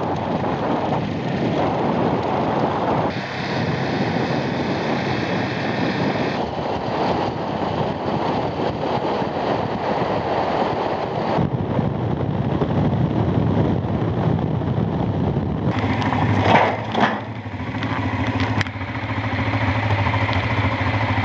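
Honda Transalp V-twin motorcycle riding, with heavy wind rush on the microphone over the engine, in short clips cut together. A brief loud burst comes about three-quarters through, and in the last few seconds, at low speed, the engine's low note stands out more clearly.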